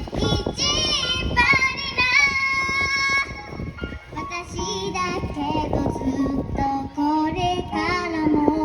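A young girl singing a pop idol song live over a backing track.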